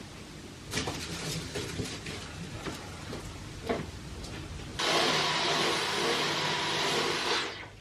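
A few clicks and knocks, then a Dyson V15 cordless stick vacuum switches on suddenly about five seconds in. It runs with a steady rushing noise and a high whine, then is switched off near the end and winds down.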